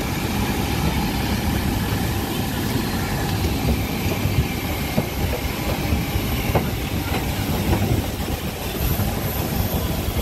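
Steady apron noise around a parked Boeing 737-800: a low rumble with a whine of several held tones, typical of the aircraft's auxiliary power unit and ground equipment running. A few footsteps or knocks land on the metal boarding stairs between about four and eight seconds in.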